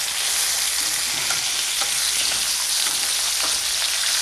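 Flour-dredged chicken breasts frying in a stainless steel skillet: a steady sizzle with a few faint clicks, as the pieces are turned with metal tongs.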